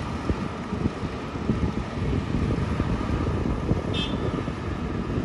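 Heavy diesel engines of an excavator and a dump truck running steadily, with a low, uneven rumble; a brief high chirp sounds about four seconds in.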